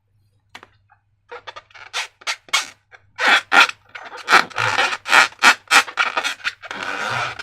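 Slime squelching as it is squeezed and worked, a run of short, irregular wet squishes and clicks that come thicker and louder from about three seconds in.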